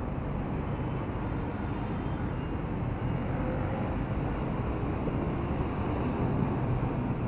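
Yamaha Aerox 155 scooter's single-cylinder engine running steadily at low riding speed, mixed with road and wind noise.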